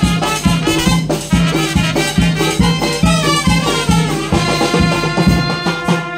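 Live brass band (banda) playing Latin dance music: trumpets and saxophones over drums, with a steady beat of about two bass pulses a second. The band stops near the end.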